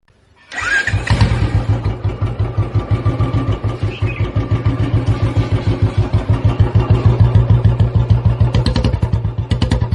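Motorcycle engine running with a steady, even, low beat, coming in about half a second in. A few sharp clicks sound near the end.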